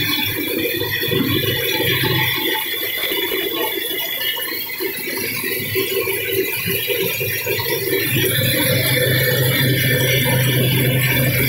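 Vertical steam engine running with a fast, steady mechanical rattle over a hiss of steam. A steady low hum joins about two-thirds of the way through.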